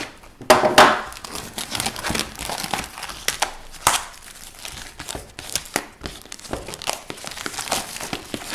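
Sealed hockey card hobby box being unwrapped and opened by hand: plastic wrapping crinkling and tearing in a string of sharp, irregular crackles, loudest about a second in.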